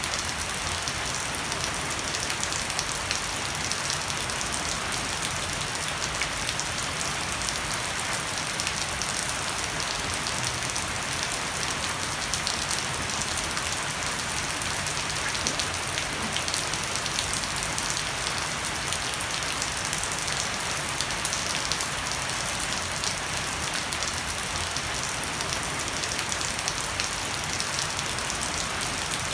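Heavy rain falling steadily on a wooden deck, garden leaves and a thatched roof edge, with water running off the thatch: an even, dense hiss of drops that does not let up.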